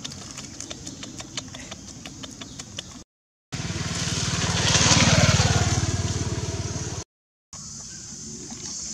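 A motorbike engine passes close by, rising to its loudest about five seconds in and then fading. It is framed by abrupt cuts to dead silence just before and after. Before it, light ticks and rustling.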